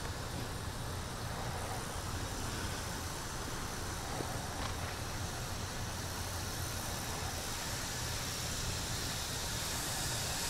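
Radio-control helicopter running steadily: an even rotor whir over a low hum, with the hiss growing a little stronger near the end.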